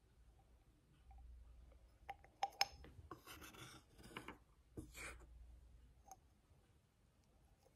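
Faint scraping and tapping of a metal spoon against a clear tube as white powder is scooped into it: a few sharp clicks about two seconds in, then short scraping rubs.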